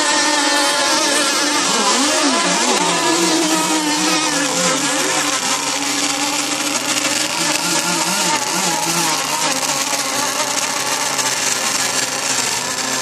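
Racing motorboat engine running on the water, its pitch wavering up and down, most in the first half.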